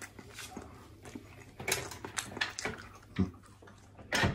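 Scattered sharp clicks and light clatter at a table, with a louder knock near the end, as fresh waffles are cut and tasted.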